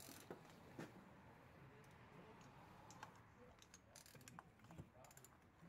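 Near silence with faint scattered clicks and light taps of a gloved hand handling parts under the car at the oil pan, thickest near the start and again about four to five seconds in.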